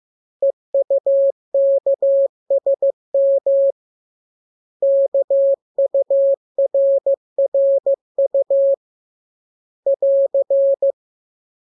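Morse code practice tone: a single steady mid-pitched beep keyed in short and long elements, sent as groups of characters with pauses between them. The last group, near the end, is the AR end-of-message sign that closes the radiogram.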